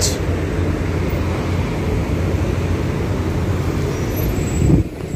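Road traffic: a motor vehicle engine running close by gives a steady low hum as an SUV drives past, and the sound drops away suddenly near the end.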